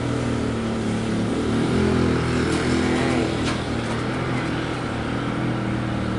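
Small riding-mower engine running steadily, with a couple of light clicks in the middle.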